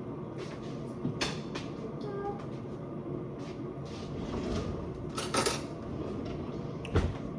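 Kitchen clatter: a few sharp knocks and clinks of cupboards and dishes being handled, the loudest about five and a half and seven seconds in, over a steady low hum.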